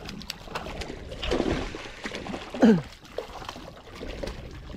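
Hooked catfish splashing and thrashing at the water's surface as it is reeled in, with surges of splashing. A short falling voice sound about two and a half seconds in is the loudest moment.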